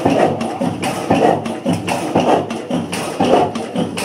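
Benz air-blast-injection stationary diesel engine running slowly: a heavy beat about once a second, with the clatter and ticking of its valve gear in between.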